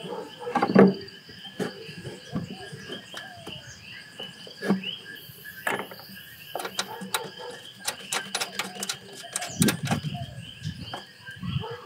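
Scattered knocks, clicks and rattles of a plastic battery tray and coolant reservoir being set into an engine bay and fastened by hand, the loudest knock about a second in and a quick run of clicks toward the end. Insects trill steadily behind.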